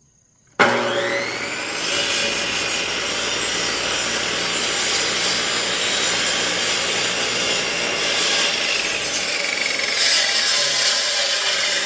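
Electric cut-off saw switched on about half a second in. Its motor spins up with a rising whine, then the blade cuts into a firewood log that is too thick to cut through in one pass. Near the end the motor's pitch starts to fall as it winds down.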